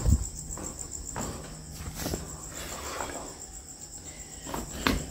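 Crickets chirping in a steady, high, pulsing trill, with a few dull thumps, the loudest right at the start and another near the end.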